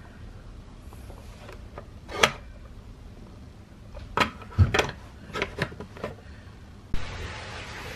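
Sharp plastic clicks and knocks of a wall-mounted Panasonic rechargeable flashlight being pulled from its holder, switching on, and snapped back in: one click about two seconds in, then a quick cluster of five or six. Near the end a steady hiss cuts in abruptly.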